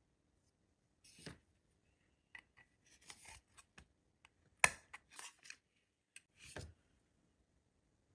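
Steel tweezers clicking and scraping against a phone's metal back housing while prying at the rear camera lens ring: scattered short clicks and scrapes, with one sharp click about four and a half seconds in.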